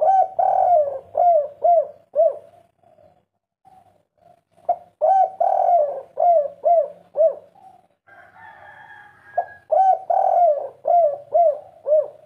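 Spotted dove singing its 'kuk 3' cooing song three times: each phrase is a short note, a longer rolling coo, then three short falling coos, about five seconds apart.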